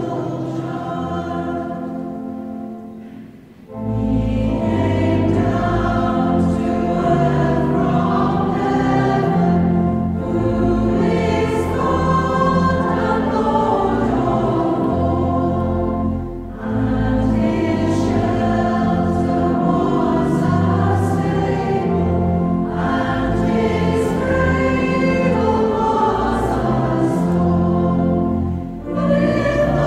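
A mostly female church choir singing a carol. The singing dips briefly at phrase ends, about three seconds in, midway through and near the end, and comes back fuller after the first break.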